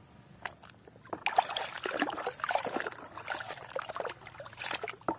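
Muddy water sloshing and splashing in a plastic tub as a hand swishes a plastic mask through it to wash off the mud. A few faint drips come first, then irregular splashing from about a second in.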